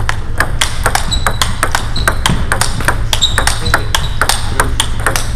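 Table tennis balls clicking off paddles and tables in a rapid, irregular patter: a backhand-blocking rally, with hits from other tables mixed in, over a steady low hum.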